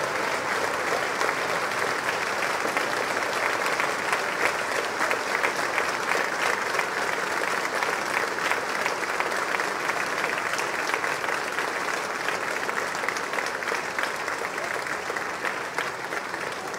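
Large crowd applauding, a standing ovation: many hands clapping into a steady dense patter that eases off slightly near the end.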